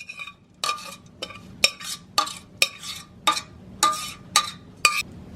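A metal spoon strikes and scrapes against a metal pot or strainer about ten times, roughly twice a second. Each stroke rings briefly with the same metallic tones. The cooked herbs are being stirred and pressed to work out the liquid.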